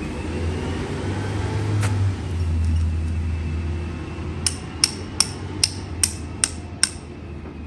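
Small sledgehammer driving an 8-inch galvanized spike through artificial turf to pin its edge: seven quick, sharp blows, about three a second, in the second half. Before them, a low rumble and a single knock about two seconds in.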